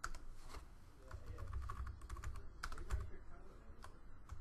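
Typing on a computer keyboard: irregular key clicks in short flurries.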